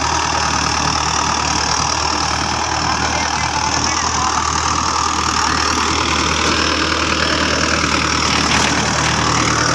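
Mahindra 585 DI XP Plus tractor's four-cylinder diesel engine running steadily under load, pulling a plough through hard, dry soil.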